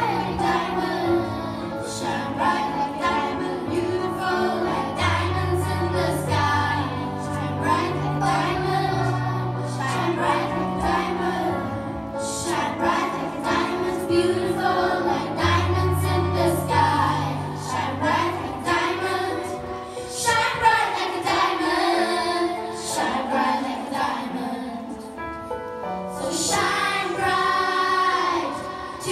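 A large group of children singing together over musical accompaniment with a steady bass line and a regular beat.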